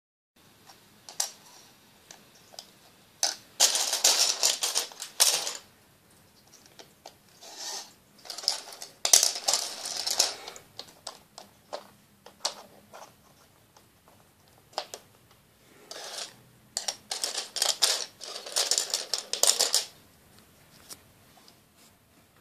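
Plastic LEGO track pieces being handled, rapid clicking and clattering in three spells: a few seconds in, around the middle and near the end, with scattered single clicks between them.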